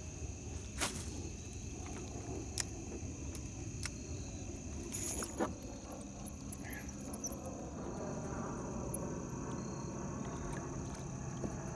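Crickets trilling steadily as one high, even tone over a low rumble, with a few sharp clicks.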